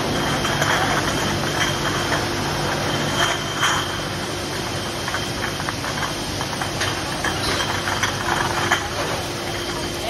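Beer bottling line running: a steady machine hum and hiss with a faint high steady tone, and glass bottles clinking against each other as they ride the conveyor.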